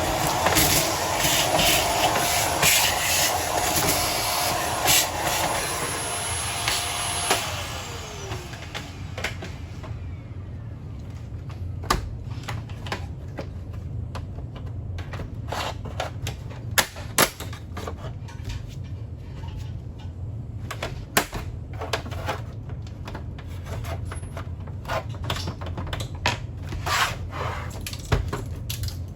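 An electric motor runs with a rushing air noise and a steady whine, then winds down with falling pitch about seven seconds in. After that, scattered sharp clicks and knocks sound over a steady low hum.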